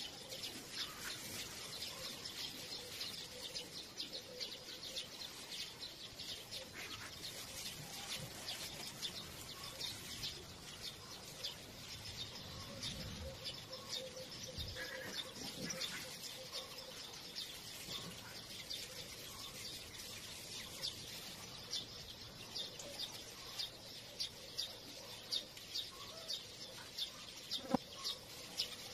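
Many small birds chirping, a dense chatter of short high chirps running without a break. A single sharp knock comes near the end.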